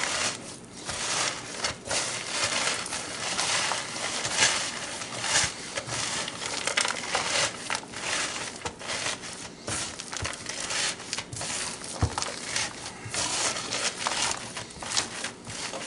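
Hands in rubber gloves kneading and squeezing raw ground meat mixed with breadcrumbs and vegetables in a bowl: continuous irregular squishing and crinkling of the mixture and gloves.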